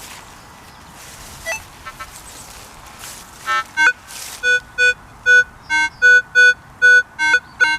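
Minelab CTX 3030 metal detector giving a run of short, same-pitched beeps, two to three a second, starting about halfway through, as the search coil is swept back and forth over a buried target.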